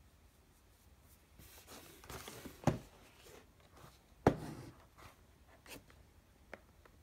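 Cardboard headphone retail box handled by hand: a stretch of rustling and scraping, then two sharp knocks about a second and a half apart, followed by a few lighter taps.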